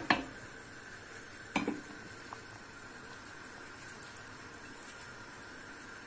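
Pot of pine cone syrup (green pine cones in sugar water) boiling with a steady low hiss, with short sharp knocks of pot and utensil at the start and again about one and a half seconds in.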